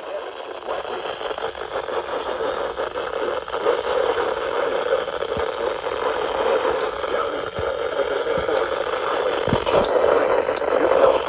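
Steady static hiss from a weather radio receiver, with a few faint clicks in the second half.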